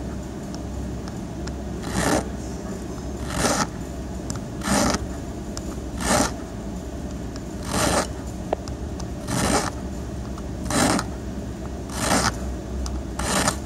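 Flat hand file scraping across the tip of a Tibbe car key blank in slow, separate strokes, about nine of them a second and a half apart, filing a master-key bevel onto a valet blank.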